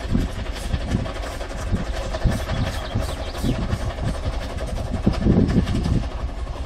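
Narrow-gauge Double Fairlie steam locomotive working a train past: a low rumble with uneven, repeated exhaust pulses.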